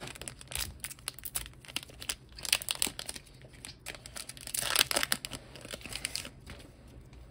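Foil wrapper of a One Piece Card Game booster pack crinkling in the hands and being torn open, with the loudest tear about four and a half seconds in.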